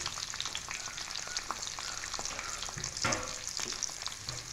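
Chili-coated sardines frying in hot coconut oil, sizzling steadily with fine spattering crackles as the oil boils around them and the curry leaves.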